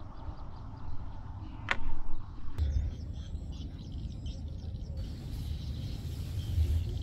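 Wind rumbling on the microphone by open water, with faint birds chirping, and one sharp knock about two seconds in.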